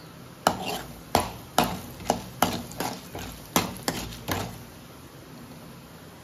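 A spatula stirring chana dal in hot oil in an aluminium kadai, knocking against the pan about nine times in four seconds, each knock ringing briefly.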